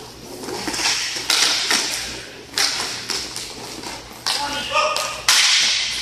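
Roller hockey play on a plastic-tile floor: sharp clacks of sticks on the puck and floor, several of them a second or so apart, each ringing on in the hall, with players' shouts among them.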